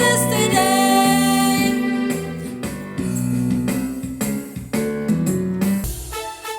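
Praise-and-worship music with a sung melody over guitar and keyboard, a short lull near the end before the music picks up again.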